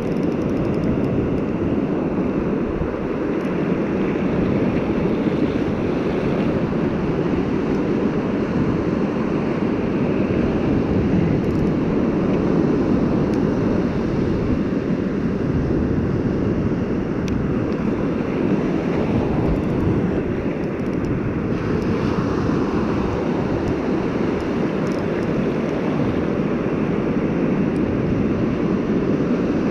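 Steady roar of breaking ocean surf, with wind buffeting the microphone.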